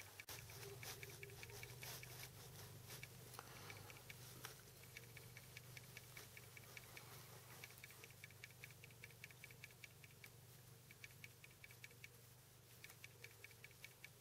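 Near silence: a faint, steady low hum with short runs of quick, faint ticking every few seconds.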